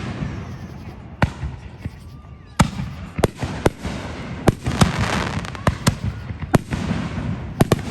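Fireworks going off: a rapid, irregular series of about ten sharp bangs, with crackling between them that is thickest around the middle.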